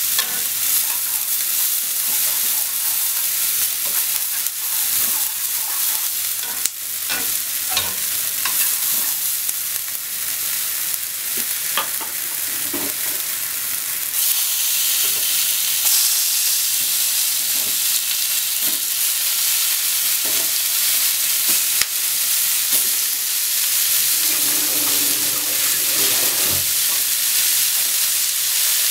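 Sliced Japanese long onion sizzling in oil in a nonstick frying pan, stirred with chopsticks that click and scrape against the pan. About halfway through, raw pork slices go into the pan and the sizzle turns louder and brighter.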